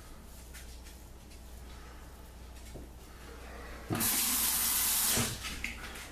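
Water tap running into a sink for about a second and a half, starting about four seconds in and cutting off sharply.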